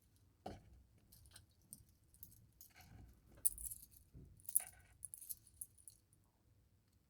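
Metal watch bracelet and clasp being handled: light clinking of the links and small sharp clicks of the clasp, a busy cluster of them in the middle with the loudest click about four and a half seconds in.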